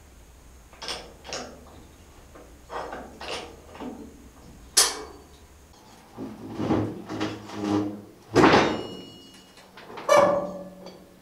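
A series of sharp metallic clunks and knocks, some ringing briefly or creaking, from a steel Land Rover Series 3 chassis and the jacks straining it on a straightening table as the twist is worked out of it.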